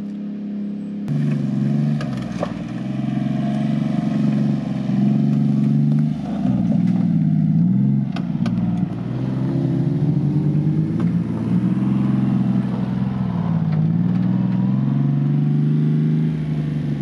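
Engine of a Honda Acty 4WD kei truck, a small three-cylinder, driving slowly over a dirt forest track. The revs rise and fall again and again as it works over the uneven ground, with a few light clicks and knocks from the truck.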